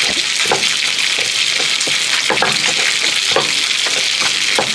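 Stone pestle crushing and grinding chilli sambal in a stone mortar, in uneven knocks and scrapes about two a second, over a steady high hiss.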